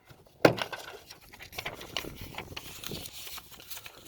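A sharp knock, then light rustling and small clicks as a handheld tool is handled and turned over.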